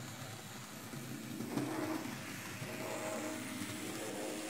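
Old N scale model train running on its track: a steady small electric motor and wheel hum that grows slightly louder and takes on a pitched whine about a second and a half in.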